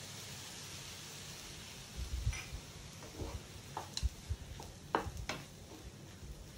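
Lime juice sizzling softly as it is poured onto hot vermicelli in a frying pan, then a wooden spatula stirring the dish, with a few short knocks and scrapes against the pan.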